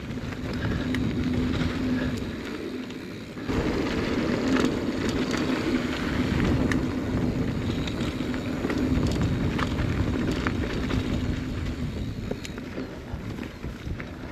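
Mountain bike rolling fast down a dirt trail: steady tyre noise over the ground with small clicks and rattles from bumps. It gets louder about three and a half seconds in.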